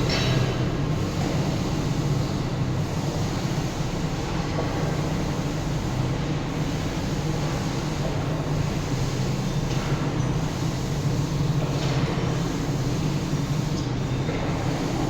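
Excavator's diesel engine running steadily with a deep, even drone, with a few brief louder rushes of noise about ten and twelve seconds in.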